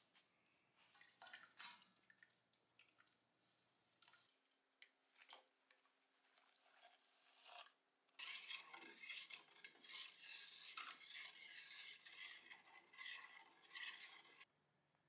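White powder poured from a plastic container into water in an enamelled steel pot, making a hiss that grows over a few seconds. Then a thin rod stirs the mixture, clinking and scraping against the pot's enamel sides many times a second, and stops suddenly.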